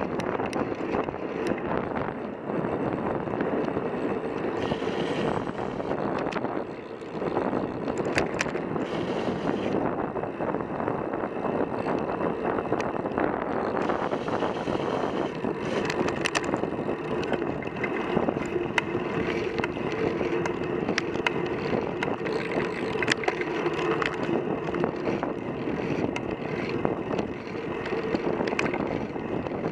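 Wind rushing over a handlebar-mounted action camera's microphone on a moving road bike, mixed with tyre and road noise. A steady hum runs underneath, and frequent small clicks and knocks come from the bumps in the road.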